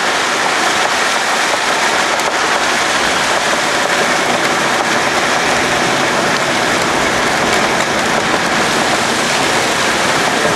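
Steady loud rushing noise of wind and road noise heard from inside a moving vehicle.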